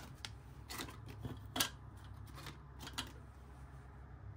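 Faint, scattered clicks and taps, a handful spread unevenly over a few seconds, from pressing calculator keys and handling paper bills while counting cash.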